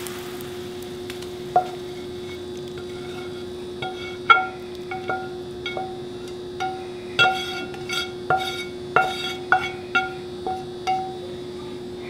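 Metal spatula scraping and knocking against a frying pan as sauce is scraped out of it. There are about fifteen irregular clinks, more frequent in the second half, and the pan rings briefly after each one. A steady hum runs underneath.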